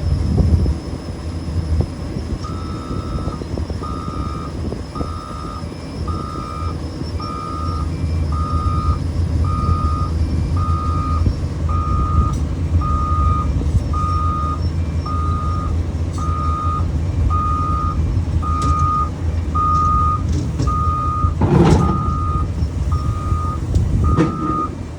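Heavy equipment's backup alarm beeping about once a second over a steady low diesel engine hum, the beeping starting a couple of seconds in. A brief louder burst of noise comes near the end.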